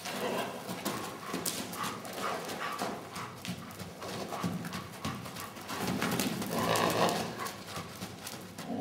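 A pony's hoofbeats as it trots around an indoor arena, a run of irregular knocks, with a dog running after it. The sound gets louder for about a second near the end.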